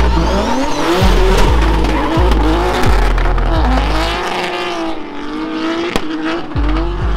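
Drift car engine revving hard, its pitch rising and falling again and again, with tyres squealing as the car slides.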